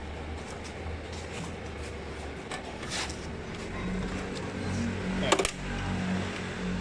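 Low, steady machine hum, likely from a MIG welding machine that is switched on. About four seconds in the hum takes on a higher steady tone. Two sharp clicks come about three and five seconds in.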